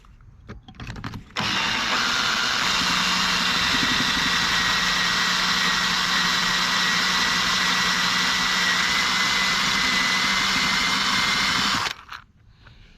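Electric drill running steadily for about ten seconds, boring out the broken bolt in an engine cylinder head. It starts and stops abruptly.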